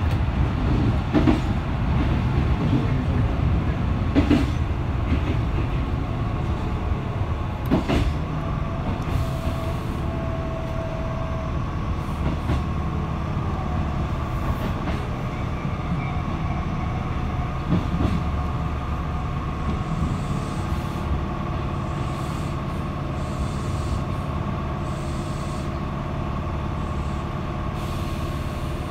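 A two-car Tobu Kameido Line electric train running, heard from just behind the driver's cab: a steady rumble of wheels on rail, a few sharp knocks in the first several seconds, and a steady whine that sets in from about halfway.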